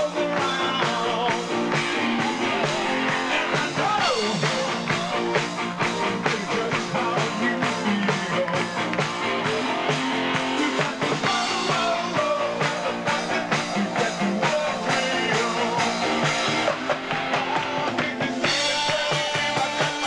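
A live dance band playing a rock number, with drum kit, guitar and a male singer on a microphone.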